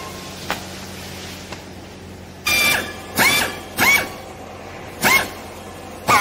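Handheld strapping tool tensioning green plastic strap around a bale: its motor whines up in pitch in four short bursts from about two and a half seconds in, after a couple of faint clicks.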